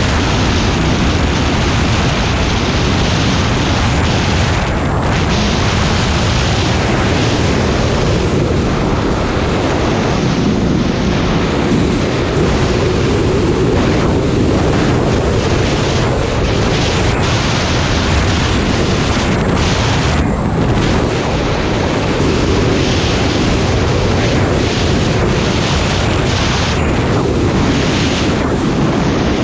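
Snowmobile engine running steadily at trail speed, mixed with heavy wind rushing over the microphone.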